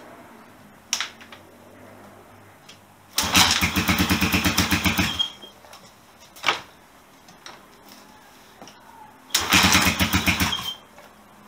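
Honda XL250S single-cylinder four-stroke engine being kick-started after a rebuild: twice it catches and fires in a rapid beat for one to two seconds, then dies. Short knocks from the kick-start come between the two tries. The exhaust is only loosely fitted and may leak.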